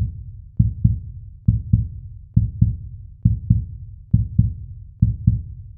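Intro music made of a low, heartbeat-like double thump, repeating evenly a little faster than once a second, about seven times.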